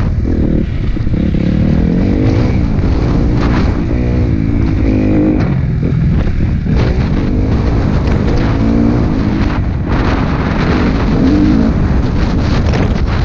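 Motocross bike engine revving up and down as the throttle is opened and closed, heard from on the bike itself.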